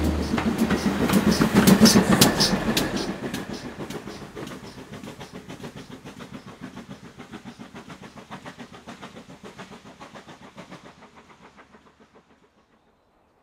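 Railway coaches rolling past close by and away, their wheels clicking over the rail joints in a steady rhythm, loudest about two seconds in, then fading out over about ten seconds.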